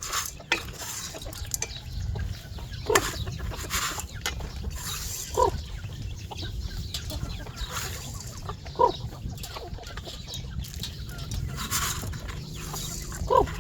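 Chickens clucking in a yard: four short calls a few seconds apart, over a steady low rumble.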